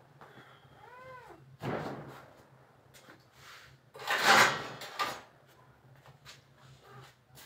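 Domestic cat giving one short meow about a second in, rising then falling in pitch. Around four seconds in comes a louder noisy sound about a second long, over a steady low hum.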